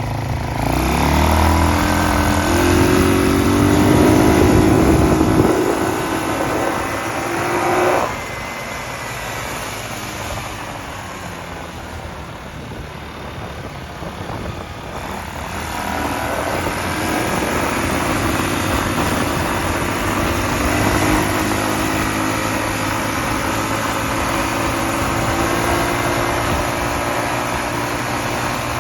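A cheap Chinese quad's GY6 single-cylinder four-stroke engine accelerating, its pitch climbing, then dropping off sharply about eight seconds in as the throttle is let off. Around fifteen seconds in it builds again and holds a steady, higher run.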